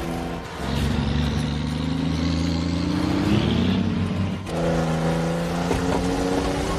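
Edited film sound of a Kenworth W900 semi truck's diesel engine. A steady engine drone cuts off abruptly about half a second in and is replaced by an engine revving up in pitch for about three seconds, then cuts back to the steady drone past the middle.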